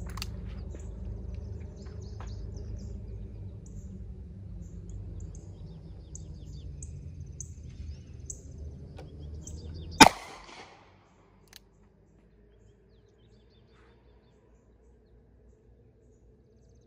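A Taurus Raging Hunter .460 S&W Magnum revolver fires a .45 Colt round about ten seconds in: one sharp, loud report with a short echo. The next shot starts right at the end. Before the first shot there is a low steady rumble with faint bird chirps, and the rumble drops away at the shot.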